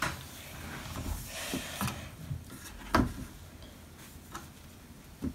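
Light knocks and rustling from a child moving on a hardwood floor and handling the golden bead material, with one sharper knock about three seconds in.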